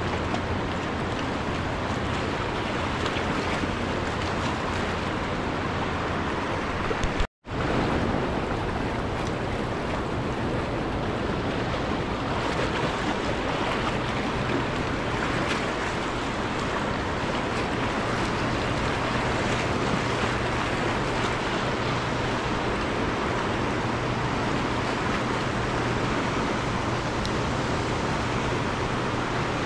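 Steady rush of fast-flowing river water, the river running high with an upstream dam's generators releasing water. The sound drops out completely for an instant about seven seconds in.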